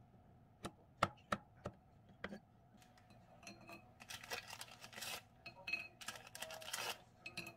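Knife tapping through golden kiwi onto a cutting mat, about five sharp chops in the first two and a half seconds. Then a stretch of crinkling from a plastic cracker wrapper as crackers are set out.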